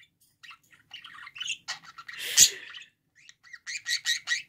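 Pet budgerigar chattering in short, high chirps. About halfway through there is one louder, harsher call with a low knock. Near the end it breaks into a quick run of repeated chirps, about four or five a second.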